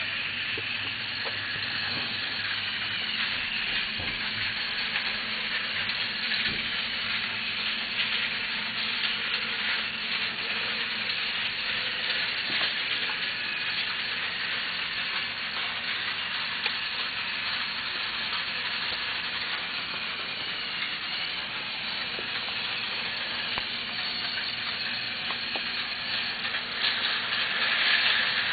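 Battery-powered Thomas & Friends Trackmaster toy engines running: a steady whir of their small motors, with a light clatter of plastic wheels over the track joints. It grows louder near the end.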